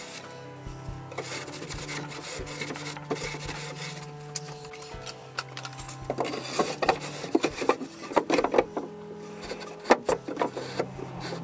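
Wooden drawer slid in and out of the sideboard, wood rubbing on wood as it runs on new pallet-wood runners, in scraping bursts over the second half.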